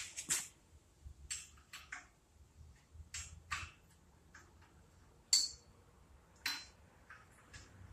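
A wrench clinking and tapping against the nuts and iron parts of an IHC Model M engine as they are loosened: a string of irregular metal clicks, two of them ringing briefly.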